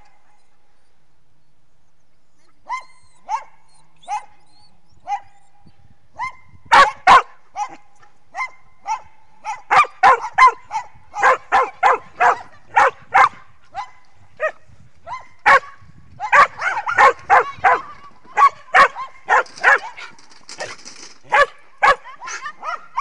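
A small dog barking in short, sharp, high barks while it runs an agility course with its handler. After a few spaced barks, the barking becomes rapid and almost nonstop from about six seconds in, two or three barks a second.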